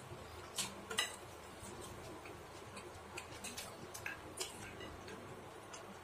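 Chopsticks and a metal spoon clicking against a ceramic plate while fried instant noodles and a fried egg are picked up: about half a dozen sharp, irregular clicks, the loudest about a second in.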